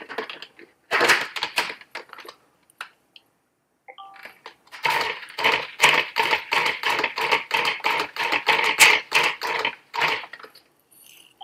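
Clicks of a food processor's lid and bowl being locked into place. Then, about five seconds in, the food processor's motor runs with a fast rattling whir for about five seconds, blending eggs and sugar, and stops abruptly.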